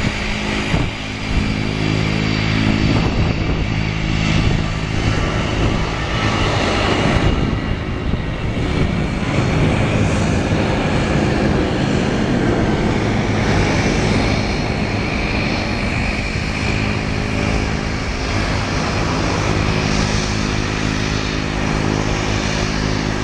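Airbus A320-214's twin CFM56-5B turbofan engines at takeoff thrust as the jet rolls, lifts off and climbs away: a loud, steady rush of engine noise with a high whine running through it.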